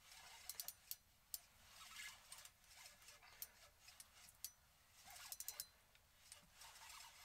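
Faint, irregular clicks and ticks from a Lew's Mach 2 spinning reel being cranked while a hooked fish is reeled up, with a quick run of clicks about five seconds in.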